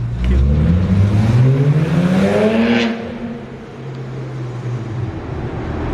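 BMW 335i's N54 twin-turbo straight-six accelerating hard. Its loud exhaust note climbs steadily in pitch for about three seconds, then drops back to a steadier, lower drone.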